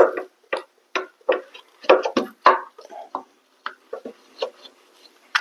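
Irregular metal clinks and knocks, a dozen or so over a few seconds, as the rear brake caliper of a Yamaha Road Star motorcycle is worked off its mounting.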